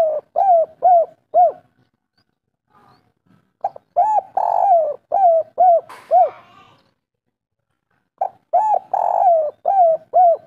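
Spotted dove singing its 'kuk 3' song: phrases of a couple of full, rounded coos ending in three short clipped 'kuk' notes. One phrase ends just as it begins, and two more full phrases follow, a new one about every four and a half seconds.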